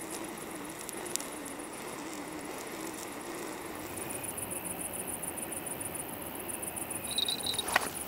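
Crickets chirping in a rapid, steady pulse. Near the end a brief high beep comes in, followed by a sharp, loud chirp.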